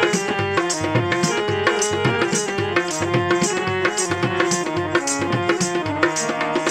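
Instrumental break of a Marwari devotional bhajan: a sustained melody line over a steady hand-drum beat, about two strokes a second, with no singing.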